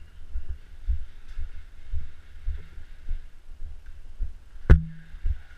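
Footsteps of a person walking along a concrete hallway, picked up as dull thumps about twice a second through a body-worn GoPro. A single sharp knock near the end.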